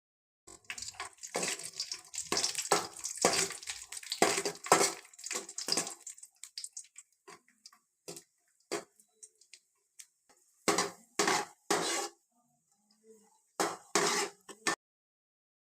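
Metal kitchen utensils and vessels clattering as they are handled: busy clinking and scraping for several seconds, then a few scattered clinks, then a few louder clatters near the end.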